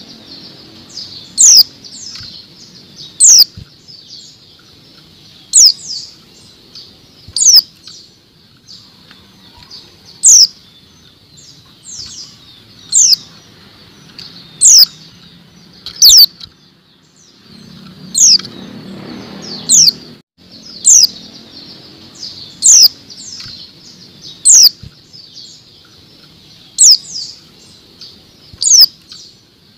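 Female white-eye (pleci) calling: loud, sharp, downward-sweeping chips roughly every two seconds, sometimes in quick pairs, with soft twittering between them. These are the female's calls, used as a lure to set male white-eyes singing. A brief low rumble in the background sits about two-thirds of the way through.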